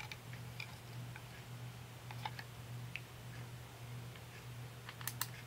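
Small metallic clicks and ticks of an atomizer being threaded onto an ohm reader's connector and the device being handled, with two sharp clicks near the end. A steady low hum runs underneath.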